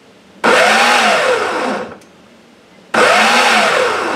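Ninja food processor pulsing as it chops peeled tomatoes. There are two pulses, one about half a second in and another about three seconds in, each about a second and a half long, with the motor's pitch rising and then falling.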